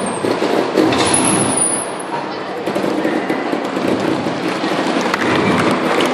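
Trials motorcycle engine running and revving as the bike comes down off a raised trailer platform and rides across the floor.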